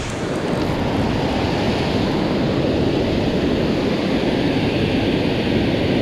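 Steady rush of river water pouring over a low-dam spillway and churning through the rocks below it.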